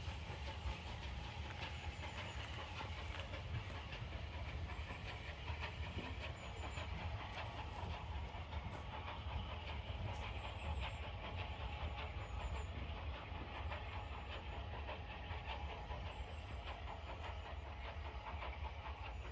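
Steam-hauled passenger train pulling away, its coach wheels clicking over the rail joints above a steady low rumble. The train is headed by Bulleid Battle of Britain class Pacific 34070 Manston.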